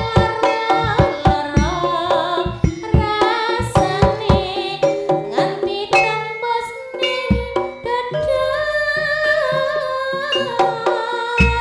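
Live Javanese jaranan ensemble playing: quick, dense drum strokes over pitched gamelan-style notes. About eight seconds in the drumming thins out and a held, wavering melody line carries the music.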